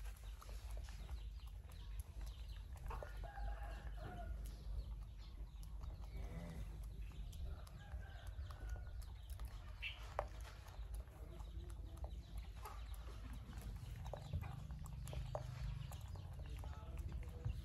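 Chickens clucking faintly in the background, with scattered small clicks over a low steady rumble.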